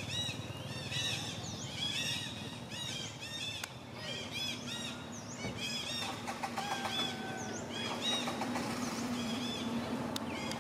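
Many short, high animal calls, each rising and falling, repeating and overlapping throughout, over a steady low hum.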